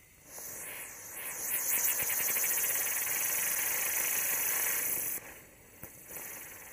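Winda Firewheel Fountain spinning on the ground and hissing as it throws off sparks. The hiss starts about a third of a second in, drops away sharply about five seconds in, and picks up again after a short pop.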